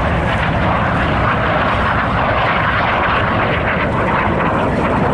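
A propeller-driven warbird's piston engine running loud and steady as the aircraft flies its display.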